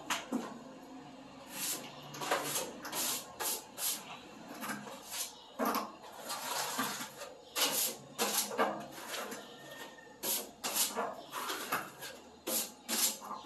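A hand scraper working a skim coat on a ceiling: a run of irregular scraping strokes, roughly one or two a second, some short and some drawn out.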